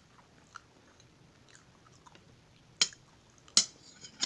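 Faint wet chewing, then a metal spoon strikes and scrapes against the plate three times as it cuts into the fried banana, each strike sharp and loud.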